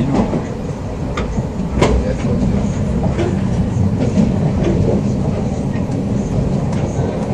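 Inside a Z 5600 double-deck electric train running at speed: steady low rumble of wheels on the track with a few sharp clicks from the rails.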